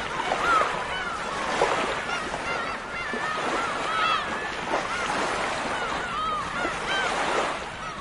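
A flock of gulls calling over breaking surf: many short, arching squawks, about one or two a second from several birds, over a steady wash of waves.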